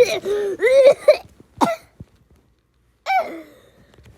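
A person coughing from a sore throat: a quick run of short voiced coughs, then one more a moment later and a last one, falling in pitch, about three seconds in.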